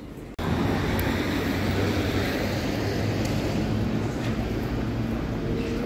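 Street ambience: a steady low rumble of traffic and vehicle engines with general city noise. It jumps up from a quieter street sound about half a second in.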